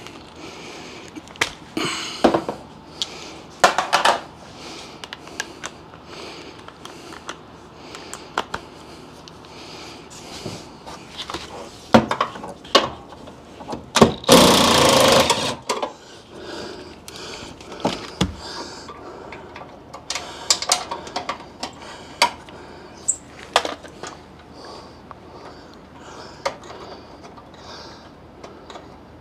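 DeWalt 20V MAX XR brushless cordless impact driver hammering for about a second and a half, running a bolt through a socket. Around it come scattered clicks and clanks of hand tools and metal fasteners being handled.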